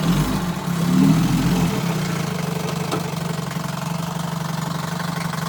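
1957 Johnson 5.5 hp two-cylinder two-stroke outboard, fitted with a replacement power head, running in a test tank. It is a little louder in the first couple of seconds, then settles into a steady idle.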